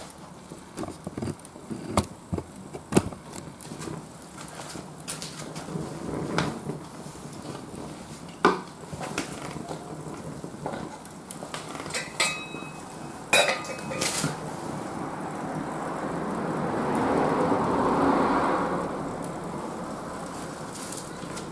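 Ogatan binchotan charcoal heating in foil-wrapped chimney starters over alcohol stoves, cracking and popping sharply at irregular moments, a few pops ringing metallically; this popping is typical of binchotan that has soaked up moisture. From about 15 s a rushing noise swells for a few seconds and fades.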